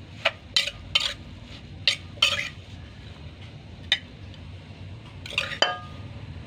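Metal spoon scraping and knocking inside a clay mortar as the mackerel dip is scooped out, about a dozen sharp strokes. Near the end comes a louder clink with a brief ring as food goes onto a ceramic plate.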